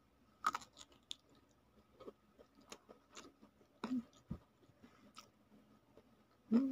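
Close-up chewing of a mouthful of crisp flour-battered fried tempeh, with irregular small crunches and crackles every half second or so.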